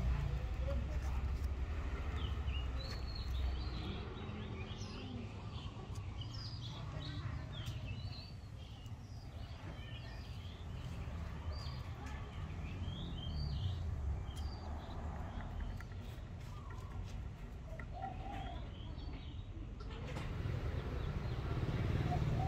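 Small birds chirping in short, scattered calls over a steady low background rumble.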